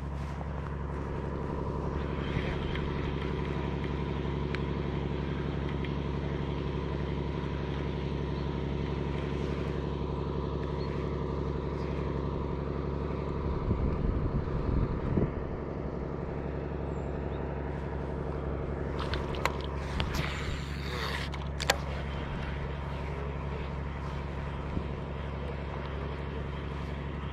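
An engine running steadily at an unchanging speed, a low even drone. A few short clicks and rustles come about two-thirds of the way through.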